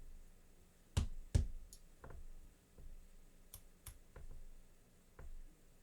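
Small metal lock parts clicking and tapping as an American 1100 series padlock is taken apart: pins and springs being tipped out and handled. Two sharper clicks about a second in, then lighter scattered clicks.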